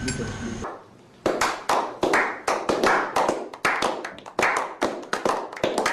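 A small group of people clapping hands in a steady run of sharp claps, about four a second. Background music cuts off just before the clapping starts.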